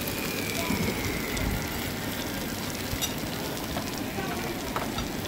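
Steak and sauce sizzling, a steady crackling hiss, with a few light clicks.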